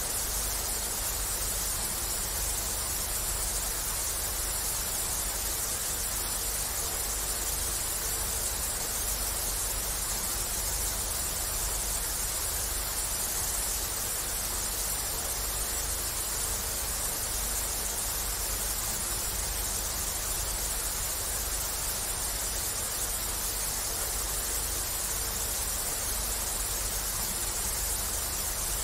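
Static from an untuned analog television: a steady, unbroken hiss of noise, brightest in the treble.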